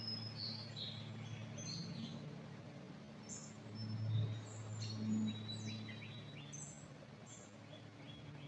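Small birds chirping, with short high calls and trills scattered throughout, over a low steady rumble.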